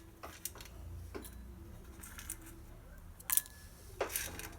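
Whole spices (peppercorns, cardamom, cinnamon, star anise, cloves) knocking in a small mortar as they are put in and lightly pounded: a few sharp, irregular knocks, the last two a little louder and slightly ringing.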